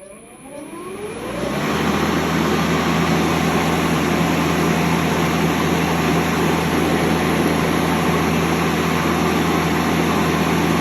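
Makita 36V (18V X2) brushless cordless lawn mower starting up: the motor and blade spin up with a rising whine over about a second and a half, then run steadily at full speed with a constant hum and blade whoosh.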